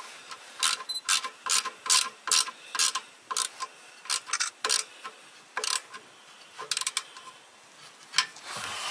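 A wrench working the nut on a car's exhaust pipe-to-muffler flange gives a quick series of sharp metal clicks, about two a second. The clicks thin out after about five seconds.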